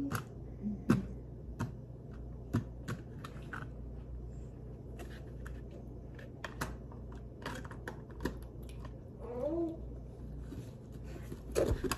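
Irregular light clicks and taps of small objects being handled at a table, with a short wavering tone about nine seconds in.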